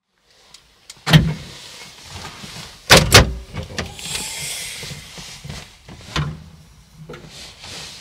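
Several sharp knocks and bangs, the loudest a pair about three seconds in, with rustling and handling noise between them.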